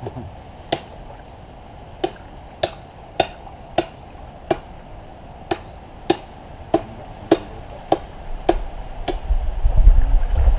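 A hand tool striking repeatedly: about a dozen sharp, chopping knocks, settling into a steady pace of roughly one every half second. A low rumble rises near the end.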